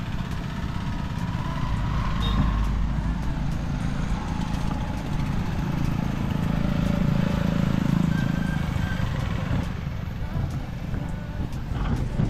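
Street traffic: a motor vehicle's low engine rumble, swelling about halfway through and easing again near the end.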